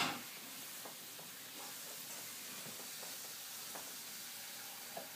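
Faint scratchy hiss of a marker on a cardboard box, with a sharp knock right at the start and a few light taps.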